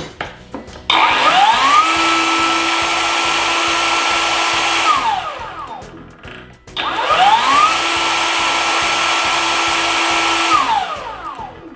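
Xenon CDCS1845 18V cordless circular saw's brushless motor test-run twice with no blade fitted: each time it spins up with a rising whine in about a second, runs steadily for about four seconds, then winds down after the trigger is released. A trial run after reassembly, before the rest of the saw is put back together.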